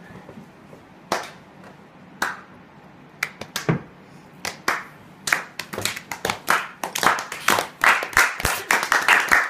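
Hands clapping: a few scattered single claps at first, then quicker, steadier clapping from about halfway through.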